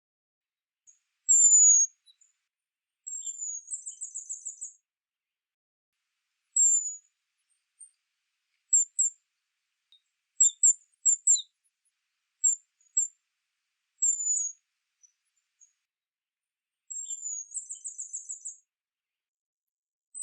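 Western spindalis calling: high, thin down-slurred whistles and short chip notes separated by pauses, with two rapid stuttering trilled phrases, one about three seconds in and one near the end.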